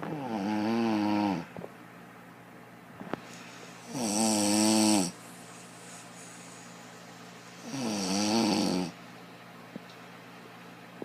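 An elderly woman snoring, unbelievably loud: three long snores about four seconds apart, each dipping and then rising in pitch.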